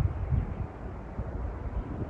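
Wind buffeting the microphone: an uneven, gusting low rumble with no steady tone.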